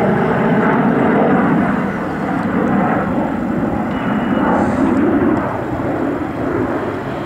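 Jet engine noise of two Panavia Tornado jets flying past, each powered by twin RB199 turbofans: a loud, rough rushing rumble that eases off somewhat over the last couple of seconds as they draw away.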